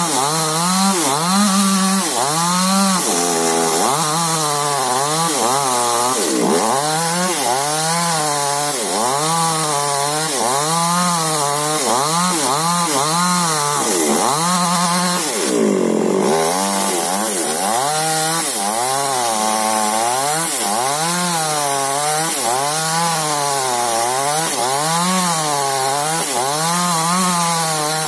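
Chainsaw engine running hard, its pitch rising and falling about once a second as the load on the cut changes, with a short break in the rhythm about halfway through.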